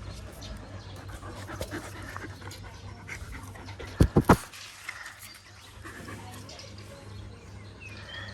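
A dog panting, with three quick, loud thumps about four seconds in.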